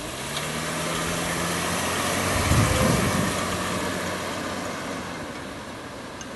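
Car engine and road noise, steady at first, swelling to a peak about halfway through and then slowly fading.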